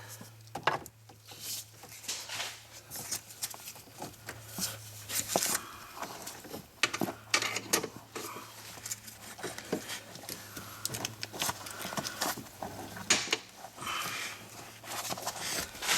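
Irregular clicks, scrapes and light rattles of a steel parking brake cable and its fittings being handled and worked into the parking brake pedal assembly, over a steady low hum.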